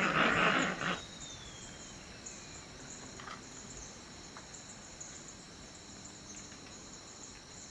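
A loud, harsh noisy sound that cuts off about a second in, then rainforest ambience: insects chirring steadily and high. A thin whistle falls slowly in pitch just after the loud sound stops.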